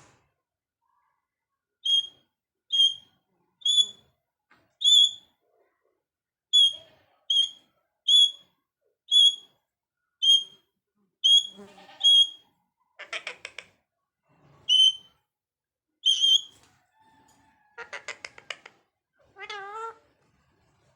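Pet parrot giving a run of short, sharp, high whistled notes, roughly one a second, then harsh buzzy calls and a wavering call near the end.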